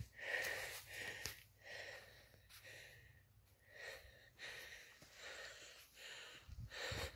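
A hiker breathing in and out as he walks, in soft pulses about a second apart, with footsteps on a dirt trail strewn with dry leaves.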